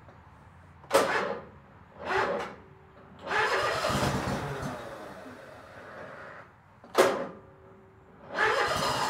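An engine being cranked over with its starter in about five bursts, one of them lasting a few seconds, without catching.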